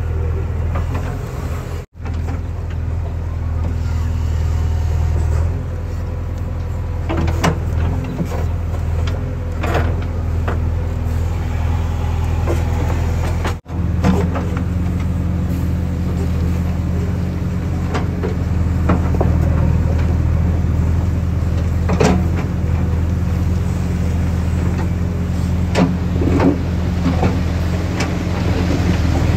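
Heavy diesel engines of earthmoving machinery running steadily, with scattered sharp knocks over the drone; the sound drops out for an instant twice.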